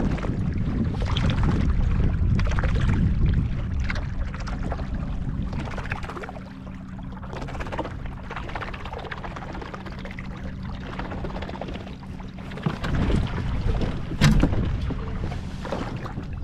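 Wind rumbling on the microphone and small waves slapping a fishing kayak's hull, with scattered knocks. A steady low hum comes in about six seconds in, and a sharp knock sounds near the end.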